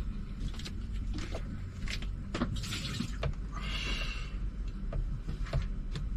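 Water sloshing and being poured out of a basin in two short spells, about two and a half and four seconds in, among knocks and clatter of handling. A steady low hum underneath.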